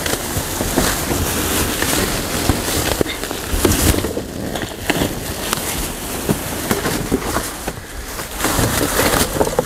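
Rustling, scraping and knocking of cardboard boxes and trash being handled in a dumpster, full of small clicks and bumps.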